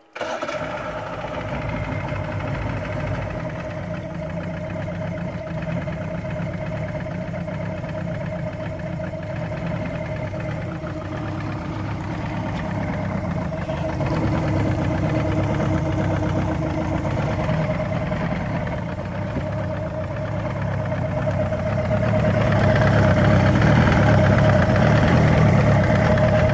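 Johnson V4 two-stroke outboard motor running steadily, with a steady hum over a low rumble. It gets louder about halfway through and again near the end.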